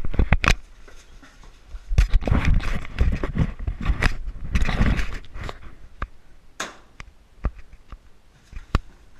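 Airsoft pistol shots: sharp single cracks at irregular spacing, with rustling and scraping from movement in two longer stretches about two and four and a half seconds in.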